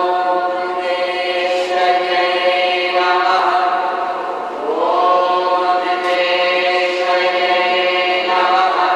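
A group of voices chanting together in long, held phrases, each opening with a rising glide; a new phrase begins about halfway through and another near the end.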